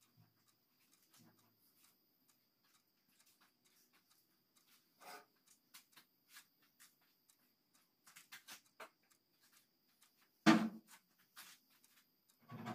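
Faint, scattered scratches and ticks of a paintbrush working paint over a car's metal door panel, with one sharp knock about ten and a half seconds in.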